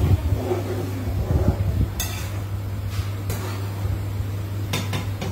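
A spatula stirring and scraping tomato pulp as it cooks in oil in a kadai, with a few sharp clinks against the pan, over a steady low hum.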